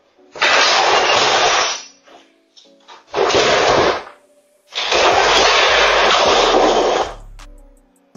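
Apartment door being forced open, heard as three harsh, distorted bursts of crashing noise through an overloaded security-camera microphone. The third burst is the longest, about two seconds.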